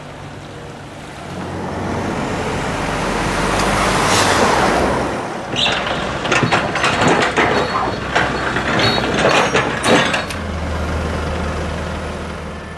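A large vehicle, likely a truck, passes close by. A rush of noise swells to a peak about four seconds in, then a run of clattering knocks and rattles, and a steady low engine hum near the end.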